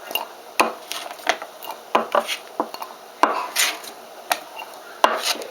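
Black radish cubes being put into a glass jar: irregular knocks and clinks of the pieces and utensil against the glass, a dozen or so strikes with no steady rhythm.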